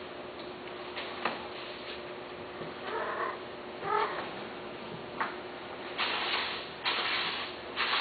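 Domestic cat meowing twice, two short calls about a second apart, then three louder bursts of noise near the end.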